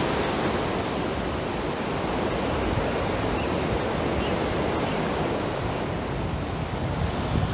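Steady rush of river water flowing over rapids, with low wind rumble on the microphone near the end.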